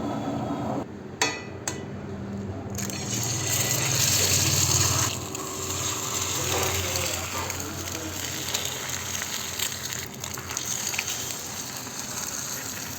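Egg frying in hot oil in a pan: two sharp taps about a second in, then a steady sizzle that swells loudest a few seconds in and settles to a lower, even hiss.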